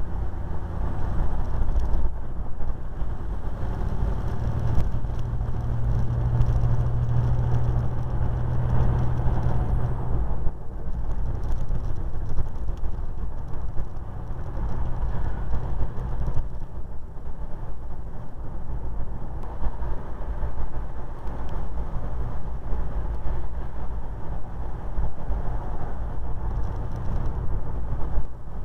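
Steady engine and road noise inside a vehicle's cab at highway cruising speed, with a low engine hum that stands out for several seconds starting about four seconds in.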